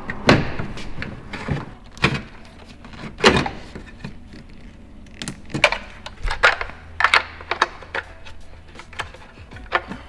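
Sharp plastic clicks and knocks, about ten scattered through, as a Mitsubishi Lancer Evolution X outer taillight housing is pulled free of the body and its wiring plug and bulb sockets are worked loose.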